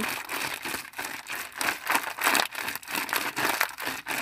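Clear zip-lock plastic bag crinkling as homemade slime is squeezed and kneaded inside it by hand, a rapid, irregular crackle that keeps going.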